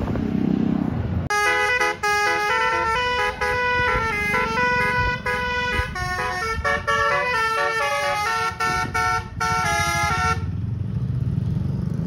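Bus's Basuri 'telolet' musical horn playing a quick tune of short, chord-like notes for about nine seconds, starting just over a second in and stopping abruptly near the end, over a low vehicle rumble.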